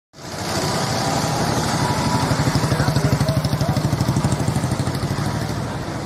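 A small engine running close by with a fast, even putter, louder about halfway through and easing off slightly toward the end.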